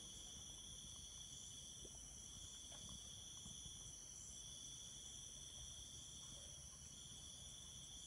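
A faint night chorus of crickets and other insects, several steady high-pitched trills at different pitches sounding together, the lowest of them pausing briefly twice, over a soft low rumble.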